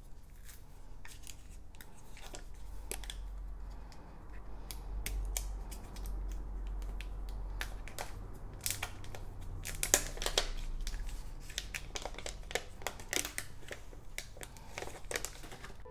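Clear plastic protective film being peeled off the back of a new smartphone, crackling and crinkling, over a low rumble. The crackles come thickest in the second half, as the sheet comes away and is handled.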